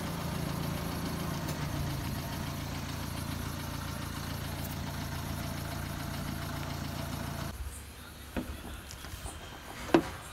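An engine idling steadily, which cuts off suddenly about seven and a half seconds in. After that, a few faint clicks and taps of small metal parts being handled.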